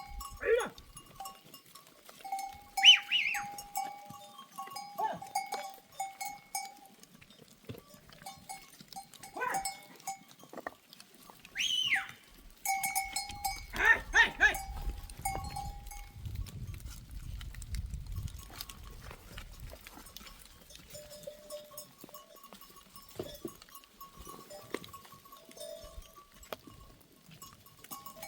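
Bells worn by a herd of goats ring and clank as the animals move, with a few goats bleating now and then.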